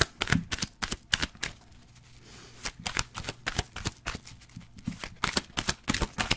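Tarot cards being shuffled by hand close to the microphone: quick runs of sharp card flicks and slaps, with a short pause about two seconds in.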